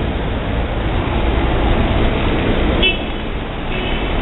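Street traffic in the rain: cars running and passing on the wet road, with a steady rumble and hiss. Short car-horn toots sound about three seconds in and again near the end.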